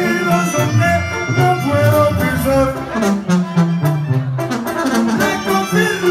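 Live banda music played loud by a brass band. Sousaphones carry a bass line that steps from note to note, under trombones and other horns.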